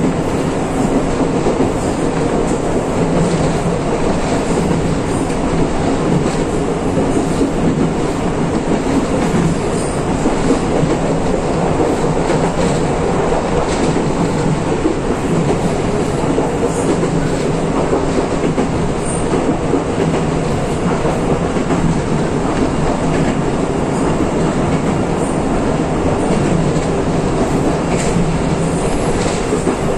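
Electric train running along the line, heard from inside the front of the car: a steady rumble with a low motor hum, and faint clicks of the wheels over rail joints now and then.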